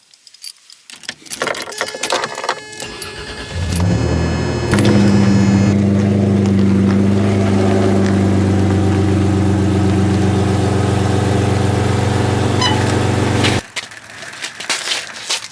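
Keys rattling, then a Toyota T100 pickup's 3.4-litre V6 starting up and idling steadily. The engine sound stops abruptly near the end.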